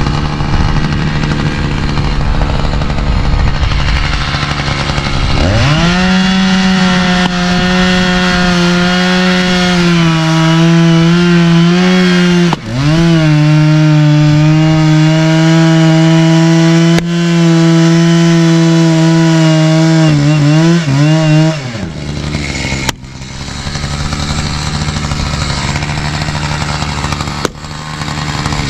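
Chainsaw revving up to full throttle and cutting for about fifteen seconds, dipping once partway, then dropping back. A lower, slower engine sound runs before and after it, and a few sharp knocks of a splitting maul striking wood stand out.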